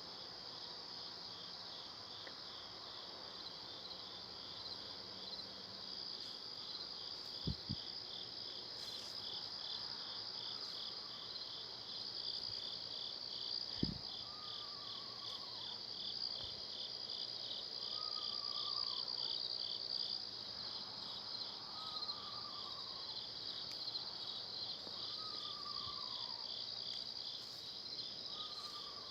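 Steady high-pitched chorus of night insects trilling with a fast pulse. From about halfway, a short falling call repeats roughly every three and a half seconds, and two brief dull thumps come in the first half.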